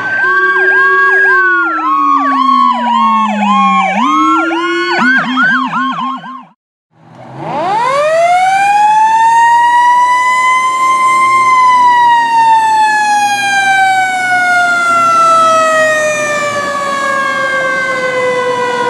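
Electronic emergency sirens sounding over one another in fast repeating yelps and slower sweeping tones, cutting off about six seconds in. After a brief silence, a mechanical siren winds up for about four seconds and then slowly coasts down, its pitch falling steadily.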